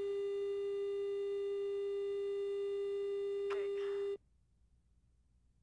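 Steady electronic tone, a single low-mid pitch with overtones, on the footage's audio track; it cuts off suddenly about four seconds in, leaving near silence.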